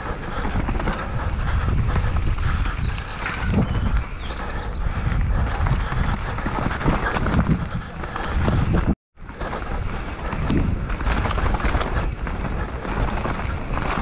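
Canyon Strive enduro mountain bike running fast down a rough dirt forest trail, heard from a rider-mounted camera: wind rushing over the microphone with the tyres and bike rattling over roots and bumps. The sound cuts out for a split second about nine seconds in.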